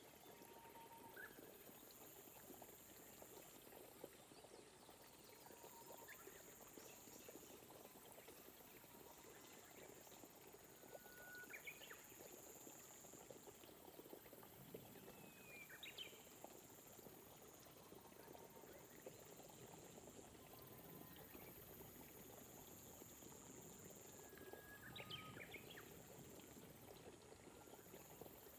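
Faint, gentle rain falling as a steady soft patter, with a bird giving short chirps and whistled glides a handful of times. A high-pitched trill, likely an insect, starts and stops every couple of seconds.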